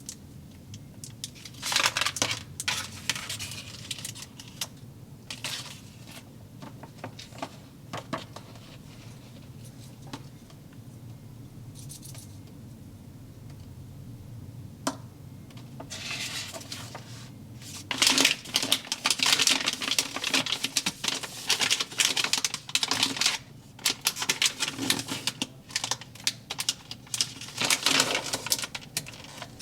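Rapid clicking and crackling in bursts from hands working a Zuru Slime Mart slime-food toy set, with the busiest stretch in the second half.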